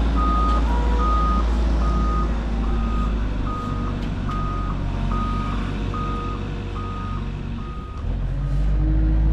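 Construction machine's reversing alarm beeping in an even rhythm, about three beeps every two seconds, over its running engine. The beeps stop about eight seconds in and the engine gets louder.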